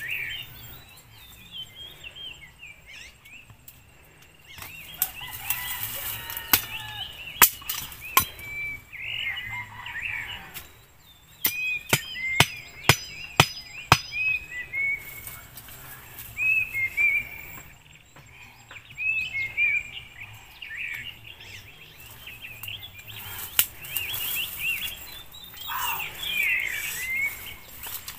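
A machete blade striking a wooden stake: a few single sharp chops, then a quick run of about a dozen chops about halfway through. Small birds chirp throughout.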